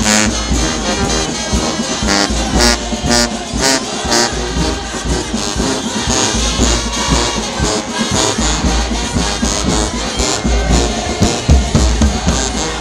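Loud brass band music with a heavy bass underneath.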